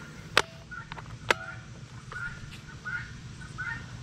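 Chickens clucking, a run of short calls about every half second through the second half. Two sharp clicks come in the first second and a half, louder than the calls.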